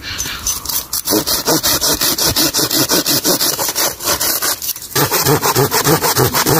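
Hand saw cutting through wood in fast, even back-and-forth strokes, pausing briefly about four and a half seconds in before going on.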